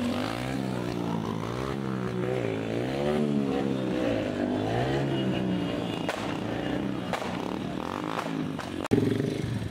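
Motorcycle engine revved repeatedly, its pitch rising and falling about once a second. A sharp click comes near the end.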